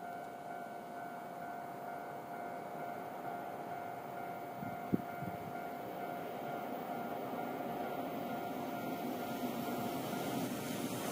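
Level crossing warning bell ringing in a steady repeating pattern, with the rumble of an approaching freight train hauled by an EH500 electric locomotive growing steadily louder underneath. A single sharp click about five seconds in.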